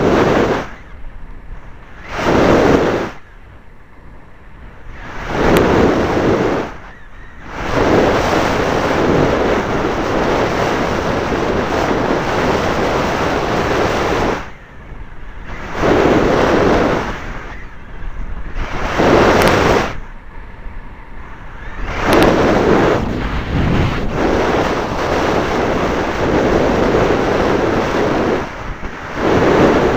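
Wind rushing over the microphone of a keychain camera on a moving racing bicycle. The noise is loud, swells, and drops away sharply every few seconds.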